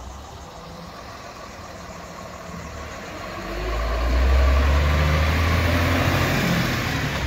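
Isuzu tilt-tray tow truck's diesel engine running as it drives off loaded. A low rumble grows much louder from about three and a half seconds in as the truck comes close past.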